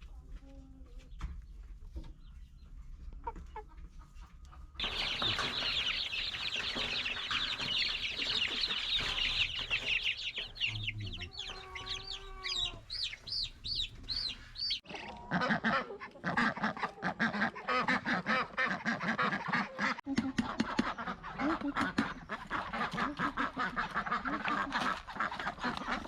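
A flock of chickens clucking and chirping. It starts abruptly about five seconds in with a dense mass of high, quickly repeated chirps, and switches suddenly around fifteen seconds to busier, lower clucking with many small clicks.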